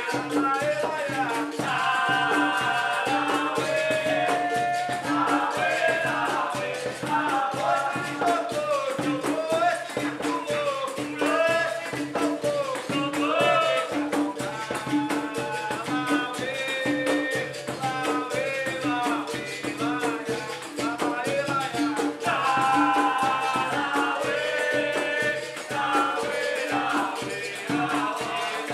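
Live capoeira roda music: berimbaus with caxixi rattles and an atabaque drum keeping a steady rhythm, with voices singing over it.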